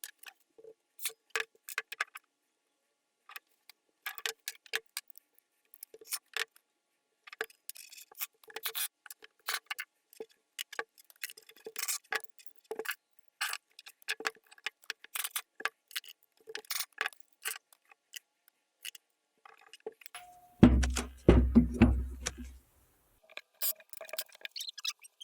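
Small metal tools and parts of a diesel injection pump clicking and clinking on a workbench during disassembly, many light, irregular taps. About 21 s in, a short run of louder knocks with a deep thump.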